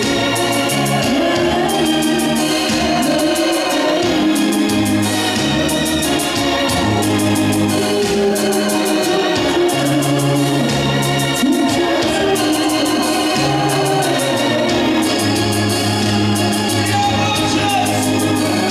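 Gospel worship song: a man and women singing over a Roland electronic keyboard playing organ-sounding held chords and bass notes, with a light ticking beat.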